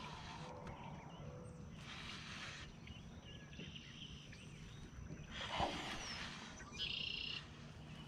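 Quiet outdoor ambience with birds calling and chirping, and a short scuffing noise about five and a half seconds in.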